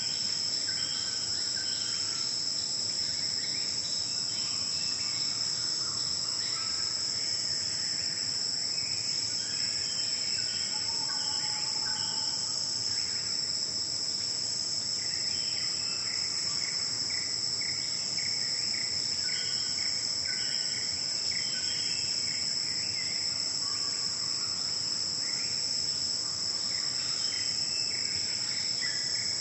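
Morning forest ambience: a dense, steady, high-pitched chorus of insects, with many short bird calls and whistled notes scattered beneath it.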